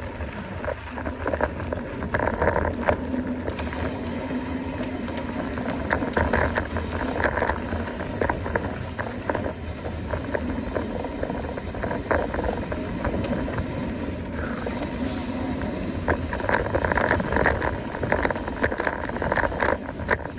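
Mountain bike riding a dirt forest trail: tyres running over the ground, with the bike rattling and knocking over bumps throughout.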